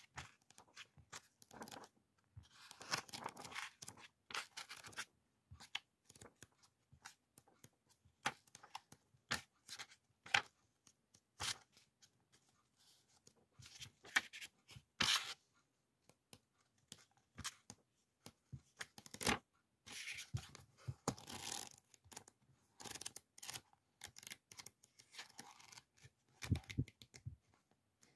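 Sheets of a thick pad of printed background paper being flipped through by hand: irregular paper rustles and flicks, some sharp and some soft.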